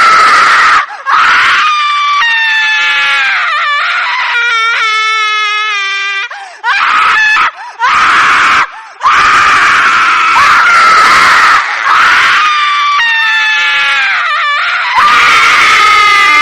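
Horror ringtone of a witch's shrill shrieking laugh: a very high-pitched female voice screaming and cackling in long, wavering cries broken by short pauses.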